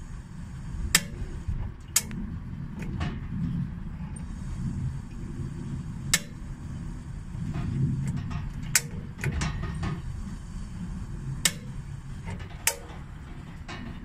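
Gas hob spark igniter snapping at uneven intervals, about ten sharp clicks, while the burner stays unlit, over a steady low rumble.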